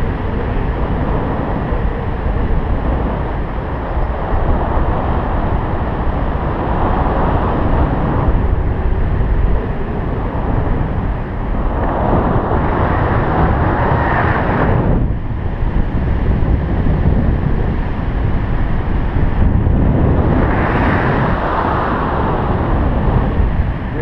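Loud, steady wind rushing over the microphone of a GoPro carried on a tandem paraglider in flight. Stronger gusts swell about halfway through and again near the end, each cutting off suddenly.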